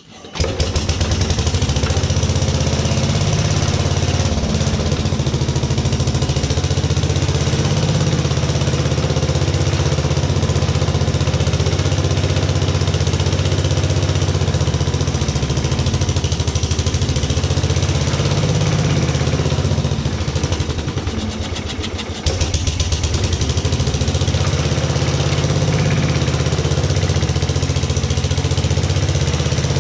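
Rebuilt Briggs and Stratton model 23A single-cylinder engine cold-starting with no choke hooked up: it catches within half a second and runs steadily with an even, fast firing beat. About 20 seconds in it sags and falters for a couple of seconds, then picks back up.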